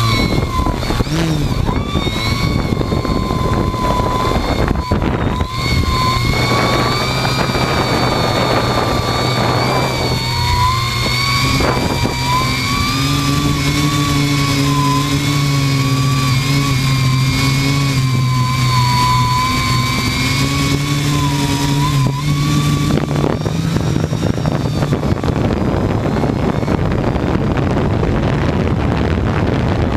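Carboncore hexacopter's electric motors and propellers whining steadily, heard from a camera mounted on its frame. The pitch drifts up and down with the throttle. In the last several seconds a rough rushing noise, wind on the microphone, covers the whine.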